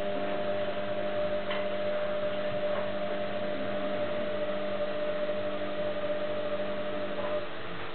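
Steady electrical hum with several held tones over a light hiss, with a few faint clicks; the highest tone cuts off near the end and the level dips slightly.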